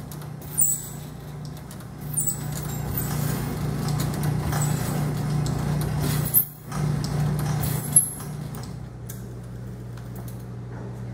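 Foley-Belsaw saw sharpening machine running: a steady motor hum with the file rasping across the hand saw's teeth and a few sharp clicks from the feed mechanism. The filing noise drops away after about eight seconds, leaving the hum.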